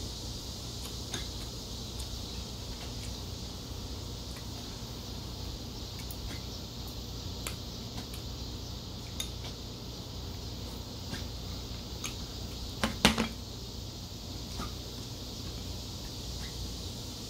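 Metal chopsticks clicking against a ceramic rice bowl and dishes during a meal: scattered light ticks, with a louder cluster of a few clinks about two-thirds of the way through, over a steady faint hiss.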